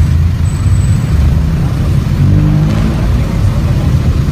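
Steady low rumble of vehicles running on the street, with no single event standing out.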